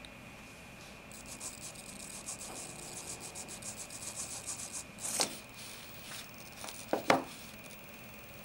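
A small electric motor driving a rack-and-pinion gear inside an aluminium haptic device, moving its top plate: a fast gritty ticking for a few seconds over a faint steady high whine, then a sharp knock about five seconds in and a double knock about two seconds later.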